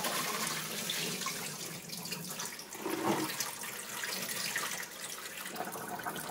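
Salt water pouring in a steady stream from a plastic tub of razor clams into a stainless steel sink, splashing on the steel.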